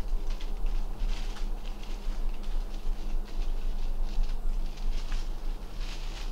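Irregular rustling crackles, like something moving through dry leaves and brush, over a steady low rumble.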